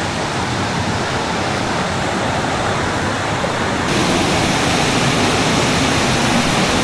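Steady rush of flowing stream water, a dense even hiss that turns brighter about four seconds in.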